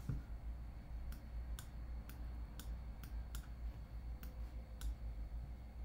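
A string of short, sharp computer-mouse clicks, about one every half second, while a sculpting tool is clicked and dragged across a model, over a low steady hum.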